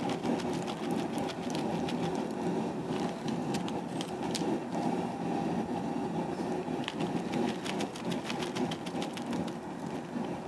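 A propane burner running steadily under a kettle of wort at a rolling boil, with scattered crackling from the boil as hops go in.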